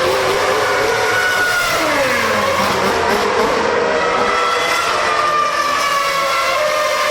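Formula One cars' 2.4-litre V8 engines running at high revs, several engine notes overlapping at different pitches. One note drops in pitch about two seconds in, then the notes hold steady.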